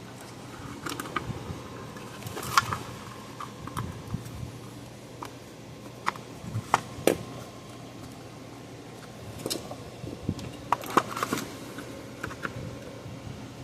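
Scattered clicks and taps of small tools and parts being handled on a workbench, a few sharper ones standing out, over a steady low hum.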